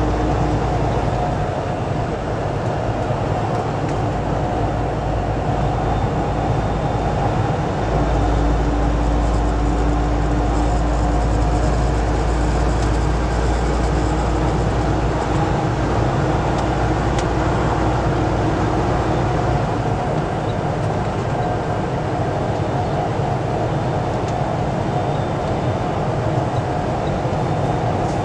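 Steady drone of an 18-wheeler semi truck cruising at highway speed, heard inside the cab: low engine rumble with a steady hum over road noise.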